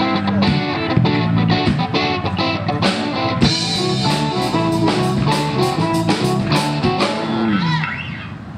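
Live rock band playing: electric guitars, bass and drum kit together. Near the end a low note slides down and the music drops away as the song finishes.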